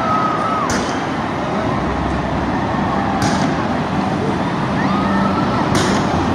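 Fireworks going off: three sharp bangs a couple of seconds apart over a dense, steady noise, with short whistles gliding in pitch.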